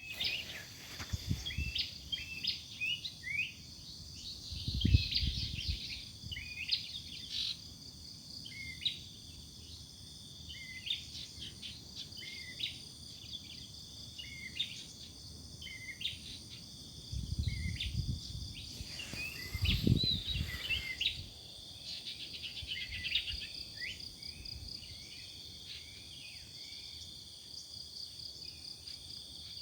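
Several wild birds chirping and singing in short, repeated phrases over a steady high-pitched insect drone. A few low rumbles break in, around 5 seconds and again between about 17 and 21 seconds.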